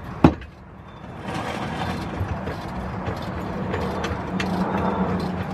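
Hydraulic floor jack being worked to lift the rear end of a car, with mechanical ratcheting and clicking. There is a sharp click near the start.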